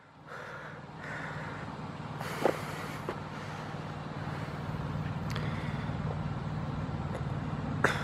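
A steady low motor hum that slowly grows louder, with a brief falling call a couple of seconds in and a few faint clicks.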